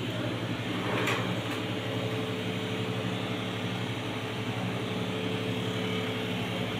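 Steady low hum and hiss of room background noise, like a fan or other small motor running, with a brief knock about a second in.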